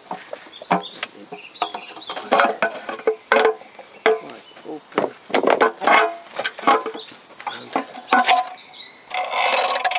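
Oil sump of a GM Ecotec engine being prised and knocked loose from the block with a hammer: irregular metal knocks, clanks and scrapes, with a longer scrape near the end as the sump slides away.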